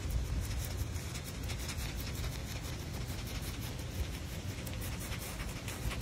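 Aardvark feeding on mealworms from a wooden board, its snout snuffling and rubbing on the wood with a rapid run of fine clicks as it licks them up.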